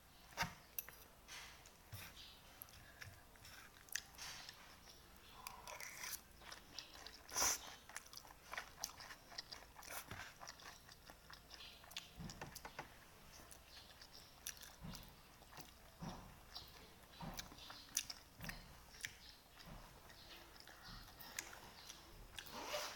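A person eating pancit batil patong close to the microphone: chewing with irregular small crunches and wet clicks, one louder click about seven and a half seconds in.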